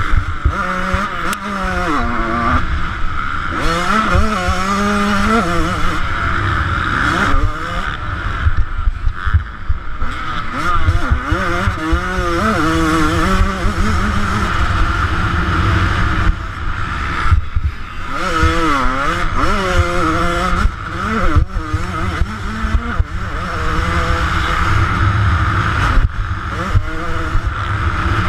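A 2009 Yamaha YZ125's two-stroke single-cylinder engine under hard riding, its pitch climbing and dropping again and again with the throttle and gear changes. Heavy wind rumble on the microphone.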